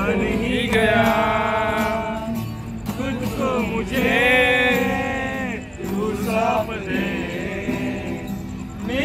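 Music with singing: a voice holds long notes, about a second in and again about four seconds in, over a steady instrumental backing.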